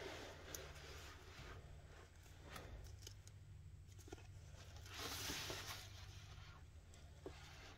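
Faint handling of a BabyBjörn One Air mesh baby carrier: soft rustling of the mesh fabric and webbing, with a few light clicks from its plastic shoulder-strap buckle and a longer rustle about five seconds in. A low steady hum runs underneath.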